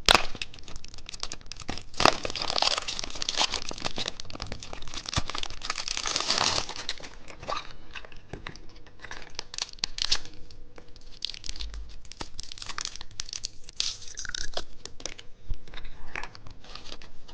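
A candy wrapper being torn open and crinkled. The crinkling is densest for the first several seconds, then thins to scattered crackles.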